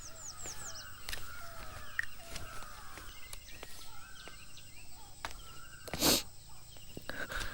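Birds calling and chirping in rural outdoor ambience: high falling whistles and short repeated calls. A loud, brief noise stands out about six seconds in.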